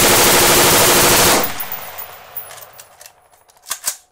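A long, unbroken burst of rapid gunfire that stops about a second and a half in, its echo dying away over the next second. Two sharp clicks come near the end.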